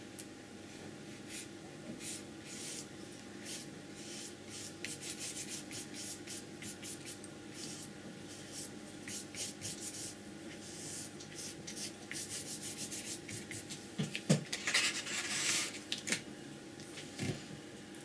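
Flat brush loaded with acrylic paint stroking over paper in many short, quick strokes, a light scratchy rub with each stroke. About fourteen seconds in comes a louder knock and a longer scrape.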